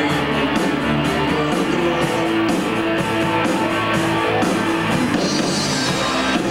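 Rock band playing live and loud: strummed guitars over bass and drums with a steady beat.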